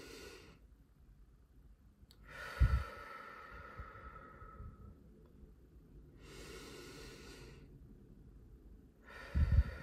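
A person taking slow, deep breaths: a long exhale out through pursed lips about two and a half seconds in, a softer inhale around six to seven and a half seconds, and another long exhale starting near the end. Each exhale opens with a low puff of air hitting the microphone.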